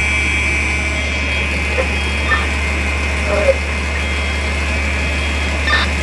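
Fire apparatus engine idling, a steady low hum, with a steady high-pitched tone running over it.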